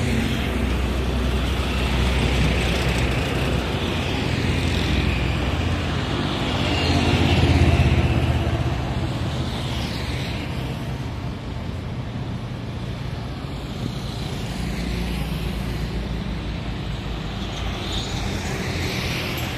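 Road traffic passing on a bridge roadway: a steady low rumble of passing vehicles, with one passing loudest about halfway through.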